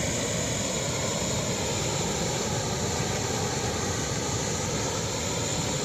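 Janggak Waterfall's water rushing with a steady, unbroken roar.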